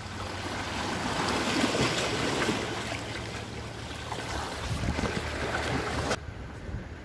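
Sea waves washing against rocks, with wind buffeting the microphone; the wind noise cuts out sharply about six seconds in.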